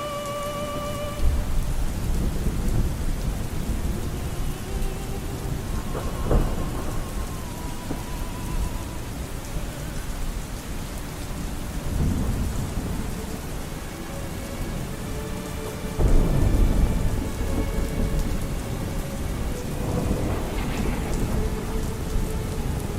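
Steady rain with several rolls of thunder, the loudest about 16 s in. Faint, muffled music with long held notes sits underneath.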